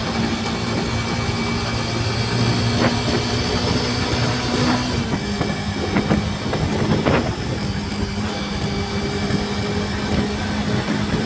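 Motorcycle engine running at a steady cruising speed under heavy wind and road noise, its pitch stepping down slightly about five seconds in. A few faint clicks are heard.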